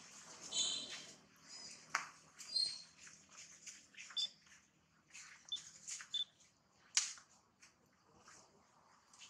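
Quiet outdoor ambience with a few short, high chirps and a couple of sharp clicks.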